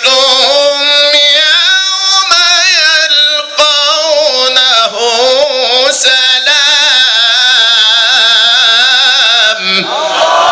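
A male Qur'an reciter's solo voice chanting through a microphone in the melodic mujawwad style, with long held notes full of wavering ornaments. Near the end the voice stops and the audience starts calling out.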